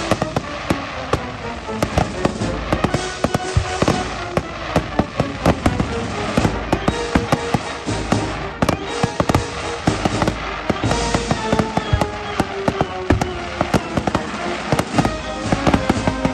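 Fireworks grand finale: a rapid, unbroken barrage of bangs and crackles, several a second, with music playing underneath.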